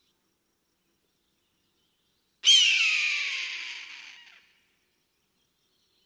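One loud, piercing eagle scream about halfway through that glides down in pitch and trails off over about two seconds.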